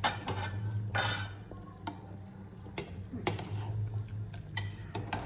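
Ladle stirring a pot of boiling soup, with several sharp clinks against the pot over a steady low hum.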